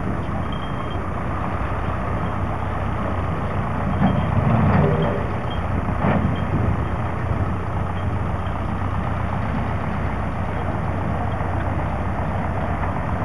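Engine of a lorry shunter, a small truck-engined rail shunting vehicle, running steadily with a constant hum. It swells briefly about four seconds in.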